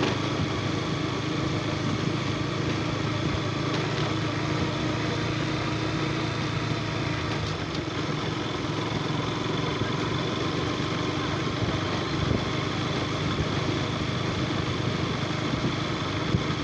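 KTM RC 125 motorcycle's single-cylinder engine running at a steady pitch.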